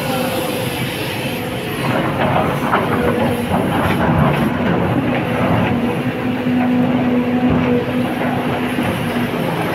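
Sany hydraulic excavator's diesel engine and hydraulics running under load, heard from the operator's cab, with a steady whine. About two seconds in, the steel bucket starts clanking and knocking against rock, and this goes on for several seconds.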